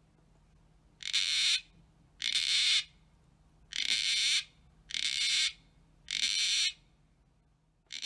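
Gang-gang cockatoo calling: five harsh screeches about a second apart, each about half a second long, with another starting near the end.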